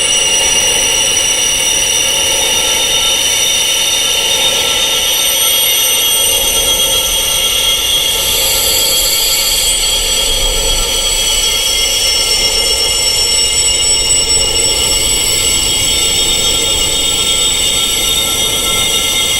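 Wind chimes tuned to tinnitus frequencies, many high-pitched tones ringing and overlapping into a dense, steady, unbroken wash.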